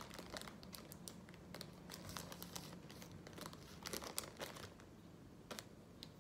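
Foil balloon crinkling as it is handled, a faint irregular crackle that is dense at first and thins out in the second half, with a few louder crackles near the end.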